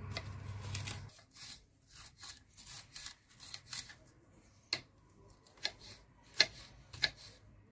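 Kitchen knife cutting a green pepper on a wooden cutting board: crisp slicing through the pepper flesh and irregular taps of the blade on the board, a few sharper single knocks in the second half.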